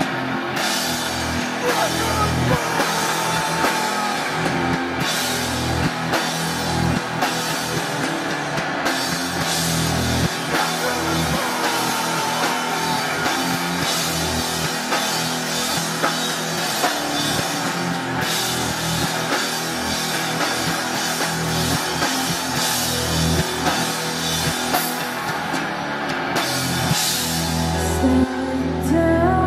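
Rock band playing live: electric guitars, bass guitar and drum kit playing together, loud and steady, with a surge near the end.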